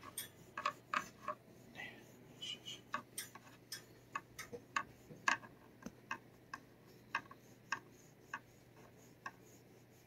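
Faint, irregular light clicks and ticks, about one or two a second, from a small plastic rake-headed scratcher on a telescopic metal handle being stroked along a cat's neck.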